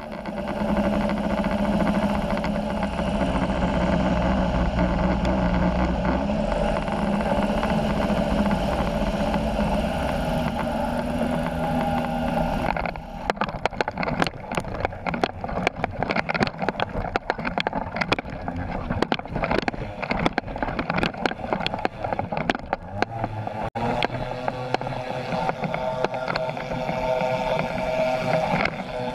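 Weight-shift ultralight trike's engine running steadily on approach. About halfway through, the skis touch down on deep, rutted snow and a dense clatter of bumps and rattles rides over the engine: a bumpy ground run. Near the end the engine runs steadier under full power for the takeoff.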